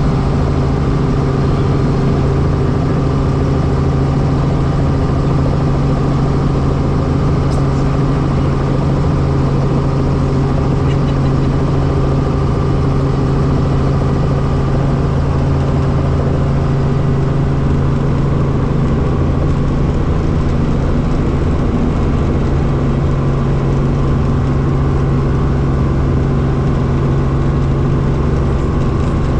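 Helicopter engine and main rotor running steadily on the ground before takeoff, heard from inside the cabin as a loud, unchanging hum.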